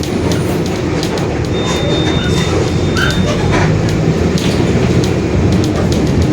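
Mercedes-Benz OF-1721 Bluetec 5 city bus running under way, its diesel engine and drivetrain droning low with the differential growling, over a steady clatter of rattles. A thin high tone sounds for about two seconds, starting about a second and a half in.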